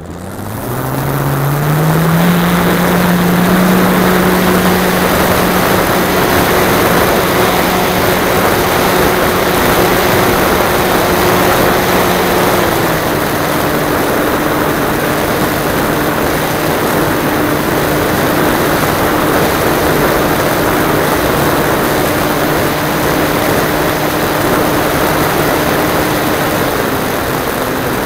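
Radio-controlled model aeroplane's motor and propeller, heard from a camera on the plane's nose. It spins up over the first couple of seconds to a steady drone under a heavy rush of wind noise, then drops a little in pitch about halfway through and again near the end.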